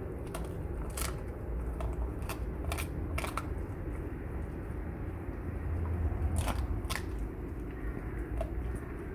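Thai Ridgeback dog chewing a raw chicken carcass, its teeth crunching and cracking the bones in irregular sharp crunches. The crunches cluster in the first few seconds and again past the middle, over a steady low background rumble.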